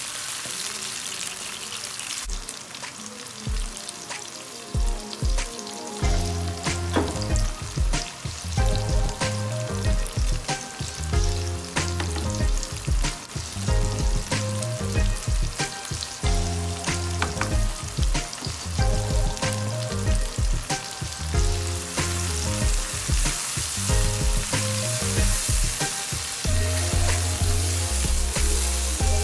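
Chopped tomatoes and onions sizzling in a frying pan while being stirred with a silicone spatula, with short clicks of the spatula. Background music with a deep, repeating bass beat comes in about six seconds in.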